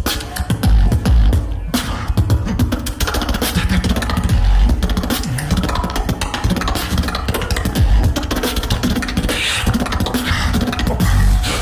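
Beatboxing from a solo battle showcase: pulsing deep bass under a dense run of rapid percussive clicks and snares.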